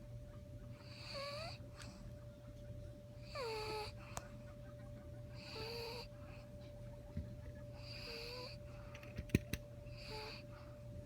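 Pet dog snoring in its sleep: five wheezy snores about every two seconds, each with a whistle that falls in pitch. A couple of sharp clicks come near the end over a steady hum.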